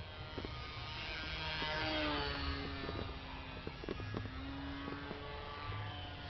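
Small electric RC plane's brushless motor and propeller whining past overhead: the pitch falls as it passes, about two seconds in, then holds steady. Low wind rumble on the microphone underneath.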